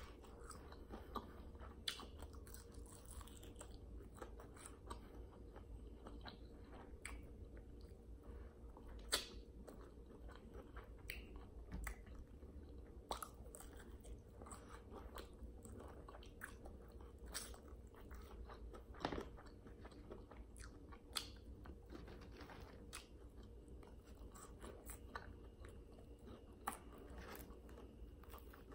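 Close-up chewing and biting of crispy fried chicken wings, with scattered wet smacks and crunching crackles; a sharper smack about nine seconds in and another near nineteen seconds.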